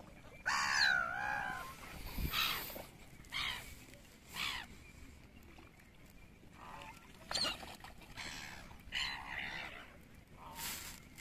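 Black-headed gulls calling: a string of harsh cries that rise and fall in pitch, coming every second or so at uneven gaps, the loudest about half a second in.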